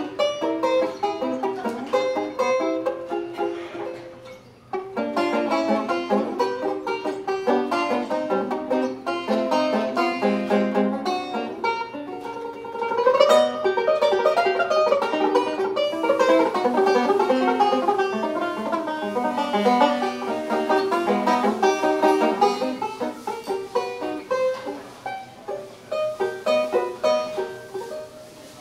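Four-string plectrum banjo played solo with a pick: a quick run of picked notes and chords, with a short rising slide about halfway through and softer playing near the end.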